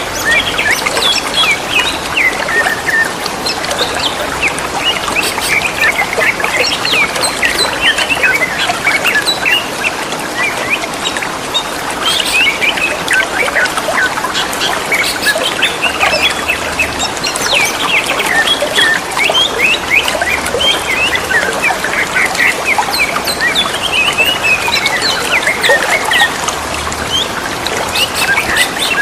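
Green leafbirds (cucak ijo) singing back and forth in repeated bouts of quick, varied chirps and warbled phrases, over a steady trickle of running water.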